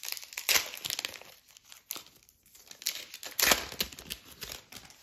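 Foil trading-card pack wrapper crinkling as it is torn open, in two spells of rustling, the louder one about three seconds in.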